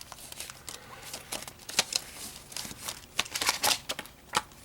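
A plastic Blu-ray case being handled and opened, with paper inserts inside: a run of irregular sharp clicks and rustles.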